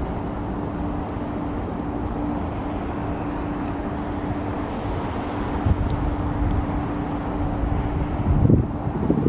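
Business jet on final approach: its engines make a steady, even drone with a constant hum. Wind buffets the microphone throughout, with stronger gusts near the end.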